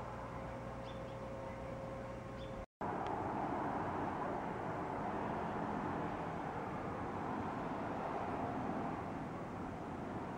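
Steady outdoor background noise, a low rumble and hiss. It drops out for an instant about three seconds in and then goes on a little louder.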